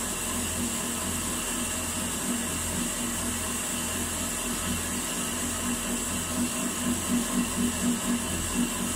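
Steady low mechanical hum of machinery running, which swells and fades about once a second, with a faster, louder pulsing over the last few seconds.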